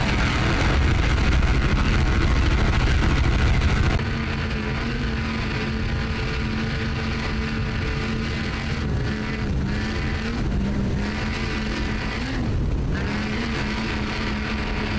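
High-performance offshore powerboat engines running at speed, a steady engine drone mixed with rushing water noise. About four seconds in the sound drops and changes to a second boat's engine, a steadier held tone that wavers slightly in pitch.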